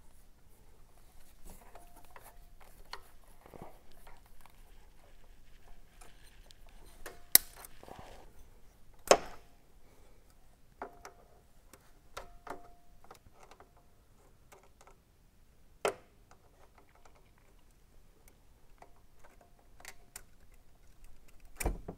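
Cutters snipping and working safety wire off an aircraft engine oil filter: a few sharp clicks at irregular intervals, the loudest about seven, nine and sixteen seconds in, with quiet handling noise between.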